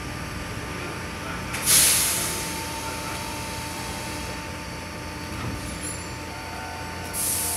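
Sanyo Electric Railway train letting off compressed air from its air brakes: a sudden loud hiss about a second and a half in that fades over a second, and a second hiss starting near the end, over a faint steady tone.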